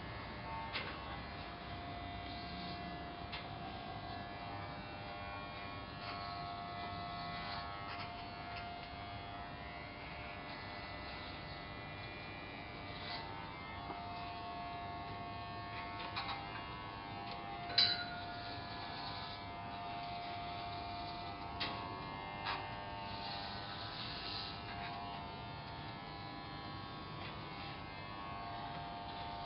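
Corded electric hair clippers buzzing steadily as they shave a head down to stubble. A few short clicks sound over the buzz, the loudest a little past the middle.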